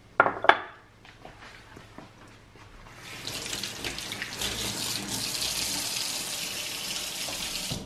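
A couple of sharp knocks, then a kitchen tap turned on about three seconds in, water running steadily into the sink and shut off near the end.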